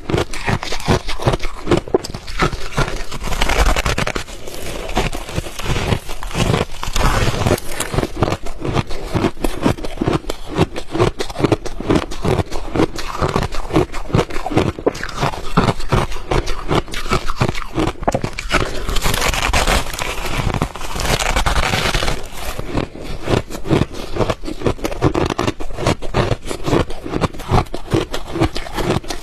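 Ice being chewed close to the microphone: a dense, continuous run of sharp crunches and cracks, with heavier crunching about three seconds in and again about two-thirds of the way through.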